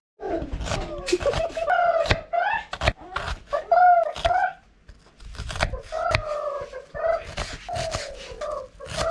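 Kitchen knife slicing and dicing an onion on a wooden chopping board: repeated sharp knocks of the blade on the board. Over it, a high-pitched wavering voice makes drawn-out, bending calls, and this is the loudest sound.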